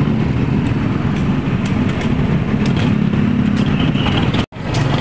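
A motor vehicle running close by, a steady rumble with scattered light clicks; the sound drops out for an instant near the end.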